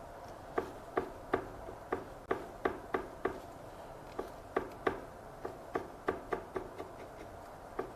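Bristle brush tapping oil paint onto a canvas: a run of short, sharp taps at about three a second, laying highlights onto trees.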